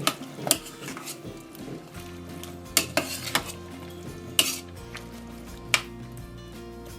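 A spoon stirring in a cooking pot, with a handful of sharp clinks and knocks against the pot over a low sizzle of frying.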